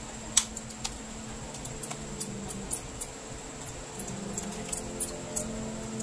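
Small precision screwdriver ticking and scraping against the screws and plastic base of a Logitech G102 mouse being taken apart: an irregular series of sharp little clicks, several a second at times.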